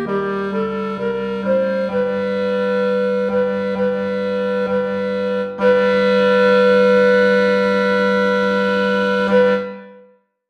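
Clarinet ensemble music playing the closing bars: a short rising run of notes, then sustained chords, with a fuller final chord coming in about halfway through. The chord is held and dies away just before the end.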